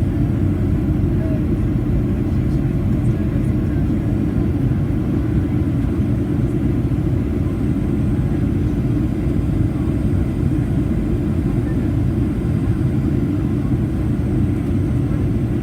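Steady rumble of a Boeing 737-800's CFM56-7B jet engines and airflow heard inside the passenger cabin, low and even with no change in power.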